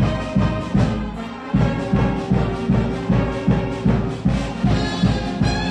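Music: a brass melody over a steady drum beat of about two and a half beats a second, with the beat dropping out for a moment just over a second in.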